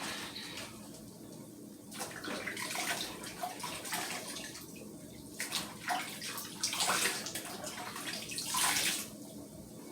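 Bite-sized raw chicken pieces sizzling as they go into hot melted butter in a small skillet, the hiss surging several times as more pieces are added, then settling.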